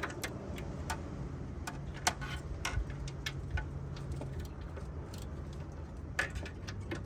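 Hand ratchet clicking in short, irregular runs of ticks as a 13 mm exhaust manifold bolt is worked loose on a 4.3 V6, over a low steady hum.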